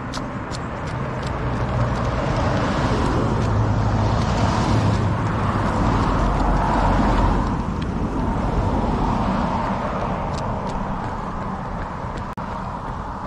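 A motor vehicle passes by on the road: its engine and tyre noise swells over about seven seconds, peaks, then fades away. Light, evenly spaced footfalls of a runner, about two and a half a second, tap near the start and again near the end.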